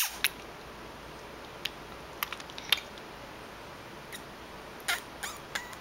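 Scattered short lip smacks and mouth clicks, a few of them briefly squeaky near the end: the small wet sounds of lips being pursed and popped for a fish face.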